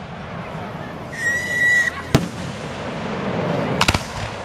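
Fireworks display: a steady high whistle lasting under a second about a second in, a single sharp bang just after two seconds, and a quick cluster of bangs near the end.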